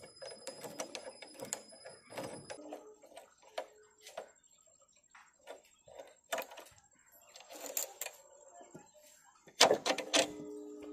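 Pliers and fingers working a motorcycle's front drum-brake cable adjuster nut loose: irregular small metallic clicks and scrapes, with a louder metal clatter about a second before the end.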